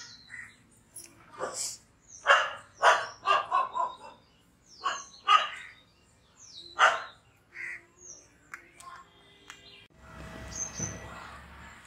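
Short, loud animal calls repeated in quick bursts, several close together, then a steadier hiss near the end.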